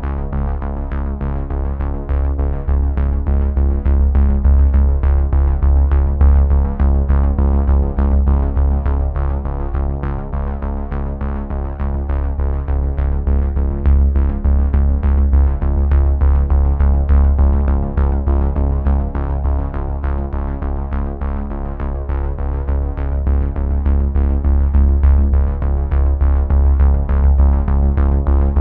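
Soundtrack music with a steady beat, sustained synthesizer-like tones and a heavy, continuous bass line.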